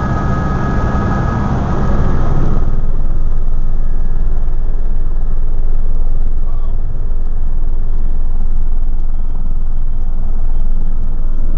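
Helicopter engine and rotor heard from inside the cockpit during takeoff. A steady high whine sounds over the noise for the first two seconds or so, then the sound grows louder and deeper, settling into a steady low rumble.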